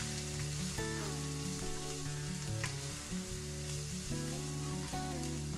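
Chopped onion sizzling in hot oil in a non-stick wok as a spatula stirs it through, with a sharp tap of the spatula against the pan about two and a half seconds in. Background music plays under the frying.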